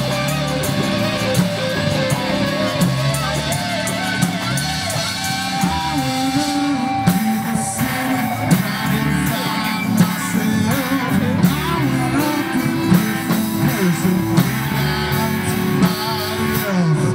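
Live rock band playing: electric guitars, bass and drums, with a lead vocal over them.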